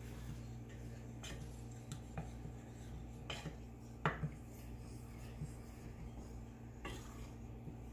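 Wooden spoon stirring a thin coconut-milk sauce in a stainless steel skillet, with a few light knocks of the spoon against the pan; the strongest come about four seconds in. A steady low hum runs underneath.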